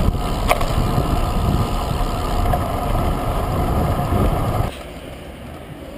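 Wind buffeting the microphone of a camera on a moving road bike, a loud, steady low rush. About three-quarters of the way through it drops suddenly to a much quieter hiss.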